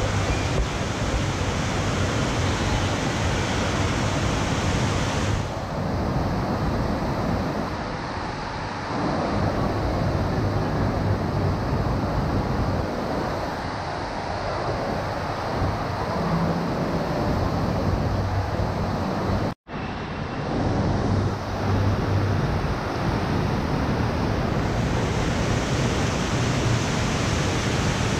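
Steady rush of water from a FlowRider surf simulator, its pumped sheet of water pouring up the ramp, with a low hum beneath it. The sound cuts out for an instant about two-thirds of the way through.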